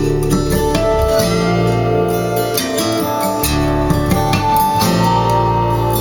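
A song played back through Bowers & Wilkins 604 S3 floor-standing speakers during an instrumental passage: guitar over held bass notes, with no singing.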